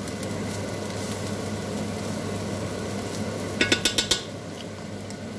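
Ground beef, grated carrot and garlic sizzling steadily in a frying pan while a spatula stirs them. A little over three and a half seconds in comes a quick run of four or five metallic clinks of a utensil against cookware.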